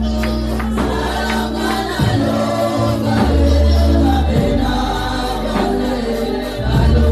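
Gospel worship music: a choir singing over a band, with a deep bass line that changes note every second or two and regular percussion hits.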